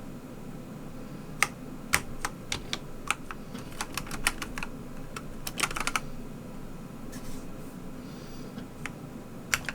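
Keys of an Akko ACR87 hot-swappable mechanical keyboard with an acrylic case being pressed: separate clacks, single and in quick runs of several strokes, as key combinations are tapped to switch the lighting effect.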